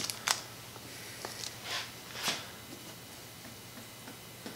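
Hand-work sounds while gluing loose veneer on a wooden cabinet: a few short hissing scuffs in the first two and a half seconds, then faint light taps.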